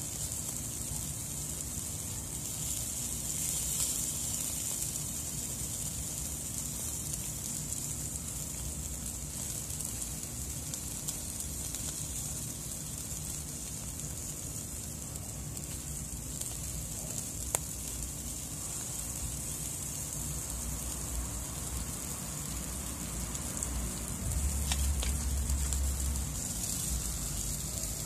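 Whole fish sizzling steadily in a wire grill basket over hot charcoal, a constant hiss with a single sharp click partway through. A brief low rumble comes near the end.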